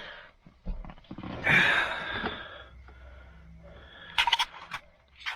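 Handling noises inside a car: a short rush of rustling, then a few sharp clicks near the end.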